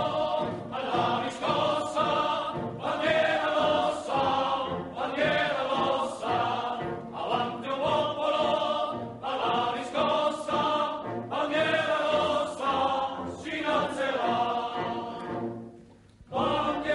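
A choir singing a song in phrases about a second long, with music behind it. It fades almost to silence about a second before the end, then sound starts again.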